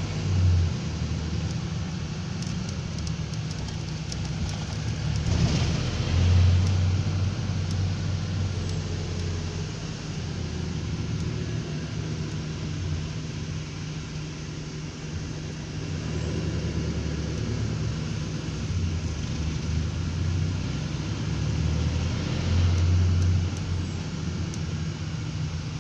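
Road and engine noise heard from inside a moving vehicle: a steady low rumble with a drone that swells several times as it drives.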